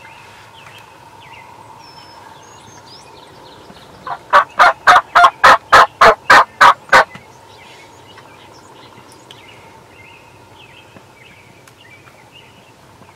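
Turkey yelping: a loud run of about eleven evenly spaced notes, about four a second, starting some four seconds in and lasting about three seconds. Faint songbird chirps are heard behind it.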